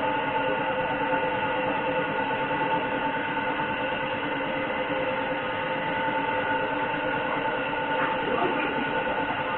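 Air compressor running steadily for spray painting, a constant hum made of several fixed tones over a hiss.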